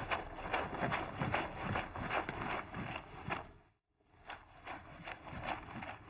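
Wet laundry being scrubbed by hand with bar soap in a concrete sink: repeated rubbing strokes, about two to three a second, breaking off briefly a little past halfway.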